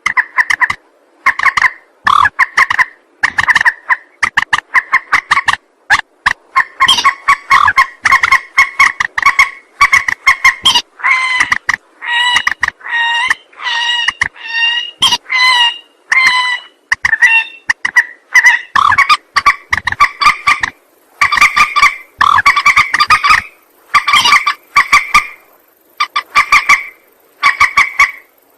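Recorded lure call of a mandar (rail), played back: a long run of rapid, clucking chattering calls, repeated in short bursts about once or twice a second with brief pauses between.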